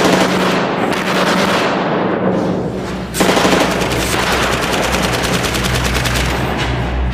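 Rapid automatic gunfire, turning into a heavy, fast sustained volley about three seconds in, over a low steady drone.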